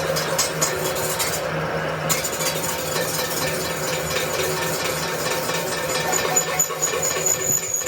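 A machine running with a steady hum and a fast, continuous rattle of clicks.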